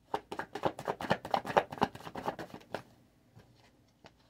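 Deck of tarot cards being shuffled by hand: a quick run of crisp flicking snaps for under three seconds, then a couple of light taps as a card is laid on the table.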